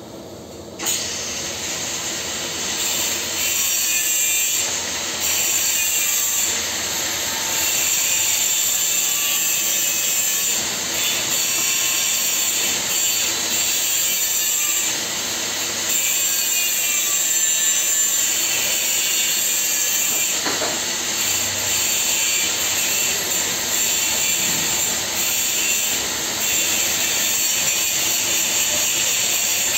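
Electric welding arc burning on a pipe fitting: a loud, steady hiss that strikes up sharply about a second in and holds, with a short break near two-thirds of the way through.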